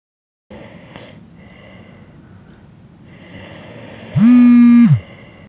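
A comedy sound effect: a loud buzzy tone swoops up, holds steady for under a second, then drops away, over a faint noisy background ambience.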